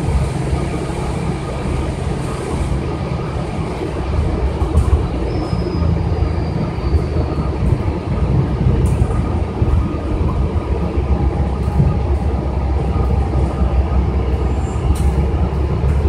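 Cabin noise of a New Flyer city bus under way: a steady low rumble of the drivetrain and tyres on wet pavement, with a few sharp clicks and rattles from the interior.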